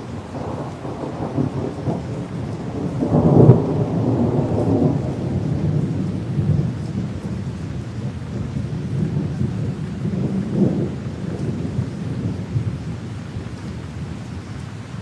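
Rain with thunder rumbling: a continuous low rumble that swells loudest about three and a half seconds in and again more briefly around ten seconds in, over a faint steady patter.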